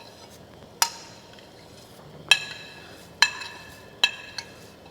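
Small dishes clinking against a cooking pot as spices are tipped into its water: four sharp, ringing clinks spread over about three seconds, with a fainter tap near the end.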